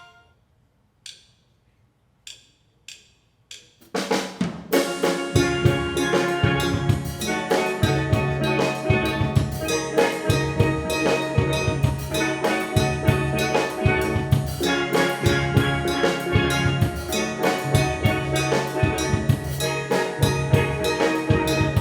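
Four sharp clicks, like a drumstick count-in, then a steel band of steel pans with a drum kit starts playing about four seconds in, with a steady bass-drum beat under the melody.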